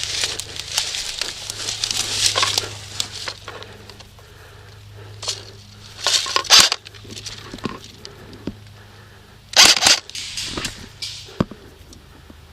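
Irregular bursts of rustling and crunching, peppered with sharp clicks: a long stretch at the start, a short one around six seconds and another about ten seconds in.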